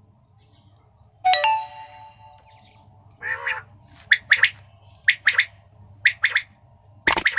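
Caged quails calling: short sharp notes in quick groups of two or three, repeating about once a second. A sudden ringing note comes about a second in.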